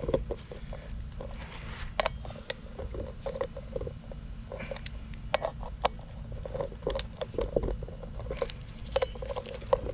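Irregular metal clicks and clinks of hand tools on bolts as the rear sprocket's mounting bolts are tightened down, over a steady low hum.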